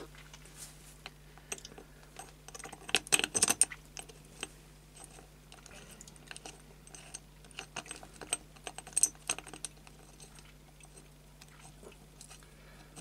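Small steel parts clicking and clinking by hand as 6 mm Allen screws and brass spacer bushes are fitted through a clamp and started into a steel drill-holder plate. There is a cluster of louder clinks about three seconds in and another about nine seconds in.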